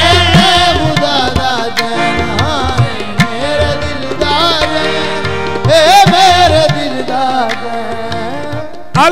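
Qawwali music: harmoniums holding sustained chords under tabla strokes, while a singer draws out long ornamented vocal phrases. Near the end the ensemble comes in louder.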